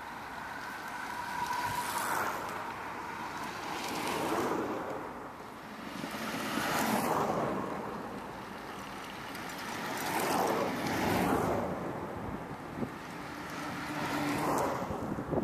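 Racing recumbent trikes and a faired velomobile passing one after another, each a rising and falling rush of tyre and air noise, with wind on the microphone.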